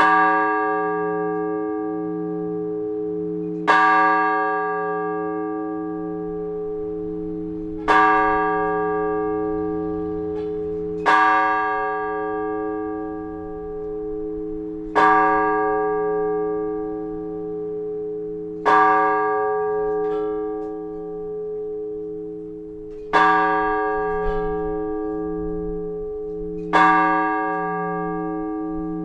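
One large Orthodox church bell tolled in slow, even single strokes, about one every four seconds, eight in all. Each stroke rings on into the next over a wavering low hum. This is the blagovest, the measured single-bell ringing that calls people to the all-night vigil.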